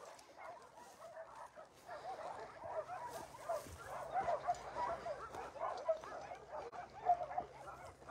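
Dogs barking and yelping faintly, many short calls overlapping, growing busier about two seconds in.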